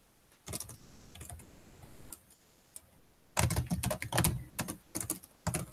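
Typing on a computer keyboard: a few light, scattered keystrokes, then a quicker run of key clicks from about three and a half seconds in.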